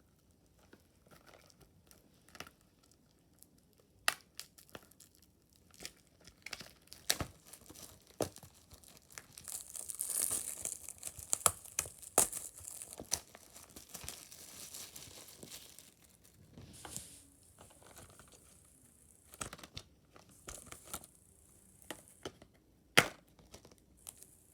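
Plastic shrink-wrap being torn and crinkled off a Blu-ray case, with scattered clicks and taps of the plastic case; the crinkling is densest in the middle, and the loudest sound is a single sharp click near the end.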